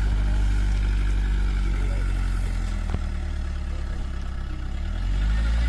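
A vehicle engine running steadily with a low hum. It eases off about halfway through and picks up again near the end, with a single faint click about three seconds in.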